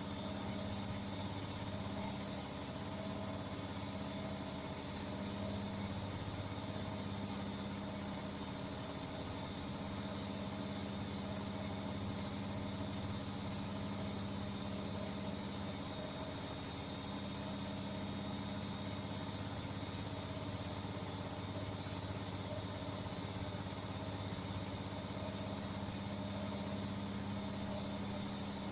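Beko washing machine running its spin and drain cycle: a steady motor hum that swells slightly every few seconds, over a constant whooshing hiss.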